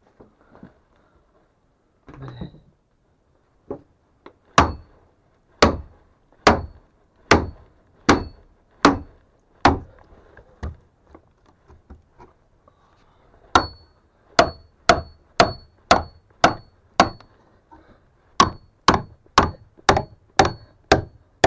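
Hammer blows on a steel log staple set in timber, knocking it loose. The blows come in three runs of about seven, each with a short metallic ring, the later runs faster at about two a second.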